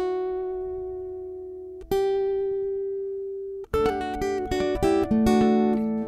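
Acoustic guitar music: a chord struck and left to ring and fade, a second one about two seconds in, then from a little past halfway a quicker picked melody.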